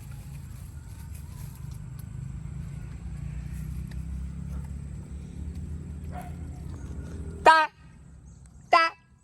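Otter giving two short, loud squeaking calls, the first about seven seconds in and the second about a second later, each a brief pitched chirp that arches up and down. Before them a steady low rumble runs underneath.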